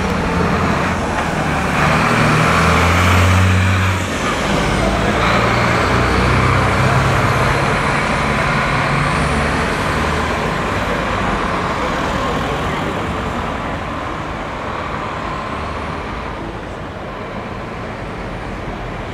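A large motor coach's diesel engine pulling away and accelerating, its note changing about four seconds in, then gradually fading as it drives off down the street.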